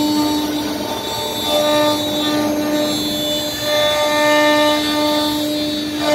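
CNC router carving: a steady, pitched machine whine with several overtones that breaks off briefly and resumes a couple of times, its higher tones shifting in pitch as the machine moves.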